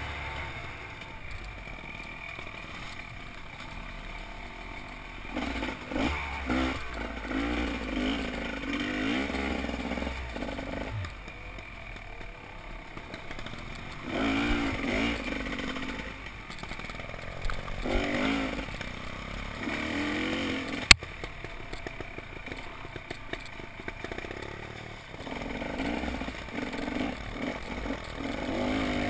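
Off-road motorcycle engine heard from the riding bike, revving up and down again and again as the throttle is opened and closed over rough trail. A single sharp click comes about two-thirds of the way through.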